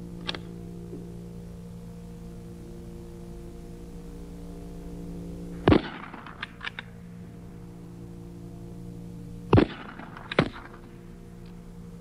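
Military rifles firing at a range: one loud shot about six seconds in, then two more close together near ten seconds, with a few sharp metallic clicks just after the first shot, over a steady hum.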